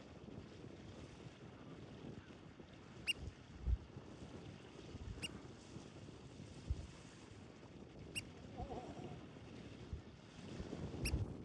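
A bird's short, high chirp, repeated four times a few seconds apart, over a low rumble of wind on the microphone with a few soft thumps.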